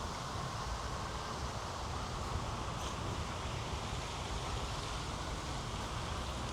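Steady outdoor background noise: a low, fluttering rumble under an even hiss.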